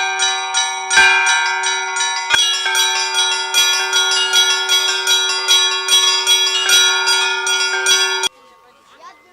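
Russian Orthodox church bells being rung: a large bell's steady low tone under repeated strikes on smaller bells. A few heavy strokes come first, then quicker lighter strikes about three a second, and the ringing cuts off suddenly near the end.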